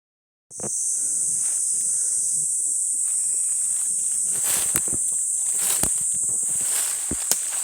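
Loud, steady, high-pitched buzzing of an insect chorus, starting about half a second in, with scattered snaps and rustles of footsteps through undergrowth.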